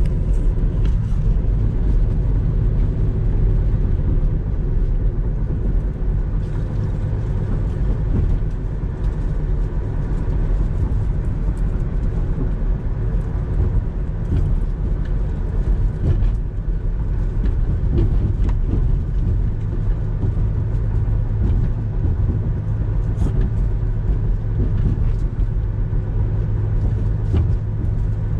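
Steady road and engine noise heard from inside a moving car: a constant low rumble.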